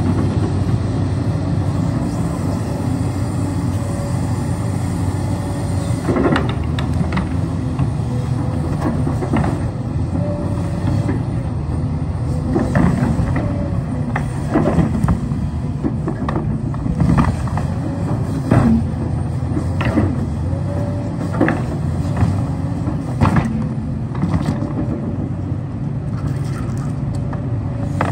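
Hidromek 310 crawler excavator's diesel engine running steadily while the bucket scoops and drops soil and rocks, with repeated knocks and thuds from about six seconds in.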